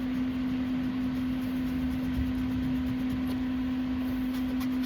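Steady machine hum at one unchanging pitch over a low background rumble.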